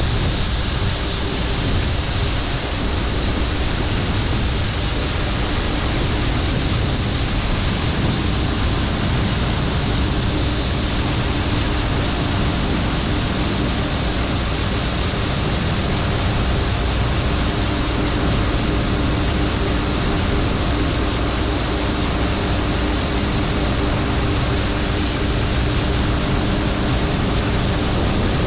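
Large farm harvest machinery running steadily: a dense, even rush of noise with a faint steady engine hum underneath.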